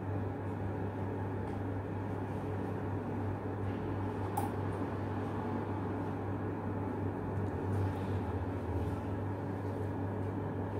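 Steady low machine hum with a strong, even drone and a light click about four seconds in.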